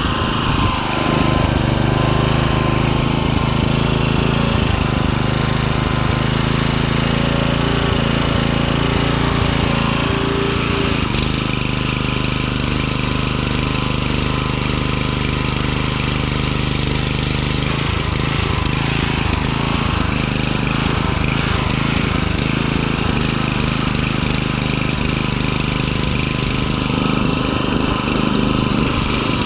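Small gas-powered garden tiller running steadily while its tines dig through soil, the engine note shifting a few times as the load changes.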